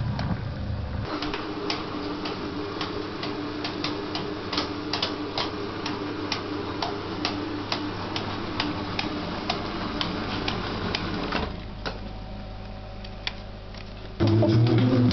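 Steenbeck 35mm flatbed editing table running, with a steady motor hum and a quick mechanical clicking of film through its rollers, about three clicks a second. The clicking thins out and the sound drops near the end.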